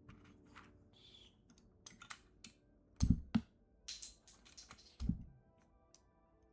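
Scattered clicks and taps of PBT keycaps being pulled off and pressed onto a mechanical keyboard, with two heavier, dull thumps about three and five seconds in.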